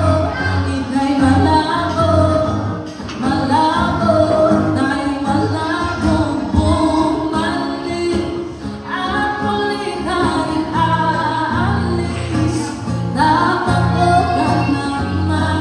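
A woman singing into a microphone, accompanied by a man playing acoustic guitar, heard through a PA speaker.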